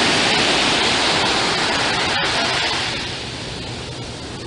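Small waves breaking and washing up a sandy beach: a steady rush of surf that eases off after about three seconds.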